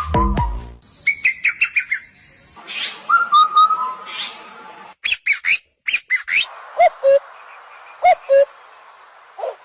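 A beat-driven music track ends about a second in. Then small birds chirp and call in short bursts, some in quick runs of about five notes a second, with sudden cuts between clips.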